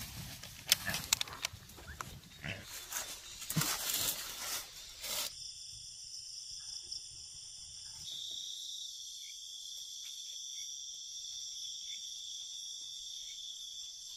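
Rustling and crackling in dry undergrowth for about five seconds. Then a steady, high-pitched chorus of night insects, with a few faint chirps over it.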